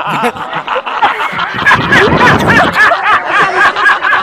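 High-pitched laughter: a fast, unbroken run of giggles.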